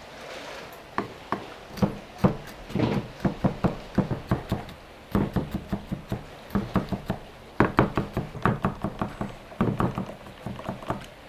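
Cleaver chopping garlic on a thick round wooden chopping block: quick runs of sharp knocks with short pauses between them.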